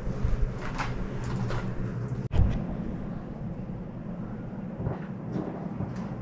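Soft rustling and light knocks of people moving about a small room, over a steady low hum.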